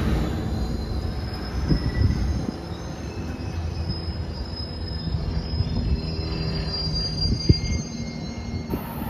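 Passenger train moving off along the tracks: a low rumble that eases after the first couple of seconds, with thin, high, wavering wheel squeal throughout. A single sharp knock sounds about seven and a half seconds in.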